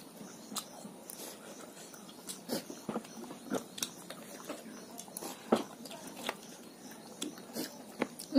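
Close-up eating sounds: chewing and lip smacks, with irregular sharp clicks of a spoon and fork against bowls and plates.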